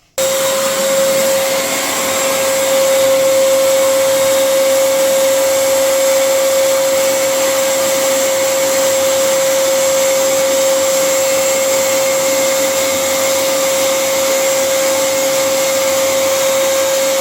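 Eureka Forbes Trendy Zip dry vacuum cleaner running at full power: a steady rush of air with a high, unchanging motor whine, cutting in suddenly.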